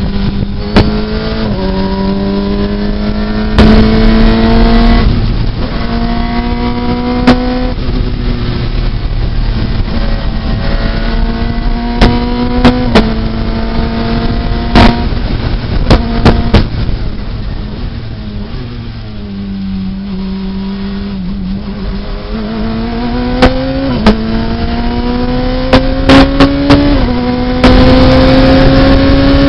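Radical SR3 RS race car's engine heard from on board at speed, revving up through the gears with quick upshifts. About two-thirds of the way through it drops back as the car slows for a bend, then pulls hard up through the gears again. Sharp knocks cut in now and then over the engine.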